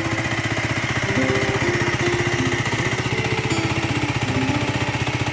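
Race GSR 125 motorcycle's engine idling steadily, a rapid, even pulse from the exhaust.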